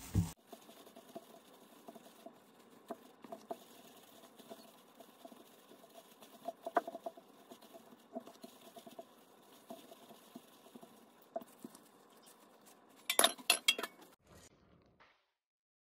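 Pandesal dough balls being rolled by hand in breadcrumbs in a glass bowl and set down on a silicone baking mat: faint rustling of crumbs with light scattered taps. One sharp knock right at the start, and a quick run of louder clinks a little after thirteen seconds in.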